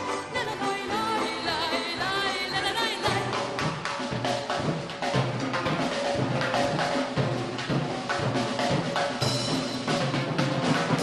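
Azerbaijani folk-instrument orchestra playing, with a woman's sung line ending about three seconds in. The percussion, timpani among it, then drives on with a steady beat under the plucked and bowed instruments.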